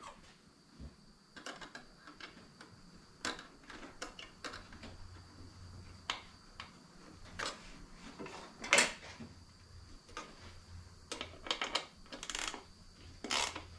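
Hand tools clicking and knocking on metal hose clamps and intake tubing while the intake coupler clamps are tightened. The clicks come at irregular intervals, the loudest about nine seconds in.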